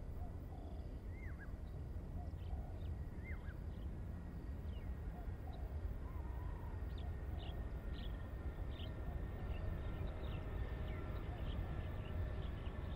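Birds chirping and calling in short whistled notes, some sliding down in pitch, more often in the second half, over a low steady rumble.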